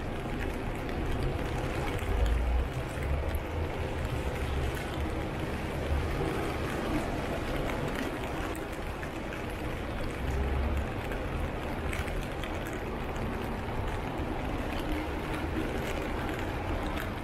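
Wet city-street ambience in the rain: a steady wash of noise, with low rumbles swelling about two seconds in and again around ten seconds.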